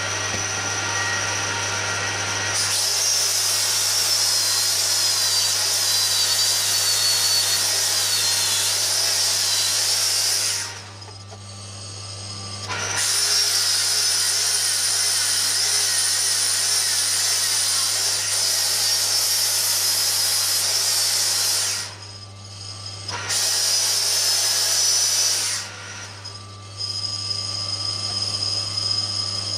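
A machine tool working stainless steel: its motor runs with a steady low hum, and three long stretches of loud, high-pitched cutting noise break off about 11 and 22 seconds in, then once more a little later.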